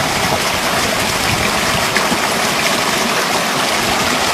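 Spring water gushing out of a cave mouth in a rock face and rushing down a stony channel: a steady, unbroken rush of water.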